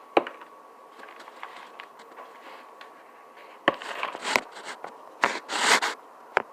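Slime-making supplies (bottles, a bowl, spoons) being groped for and handled on a tabletop: a few sharp knocks, with scraping and rustling in two bursts in the second half.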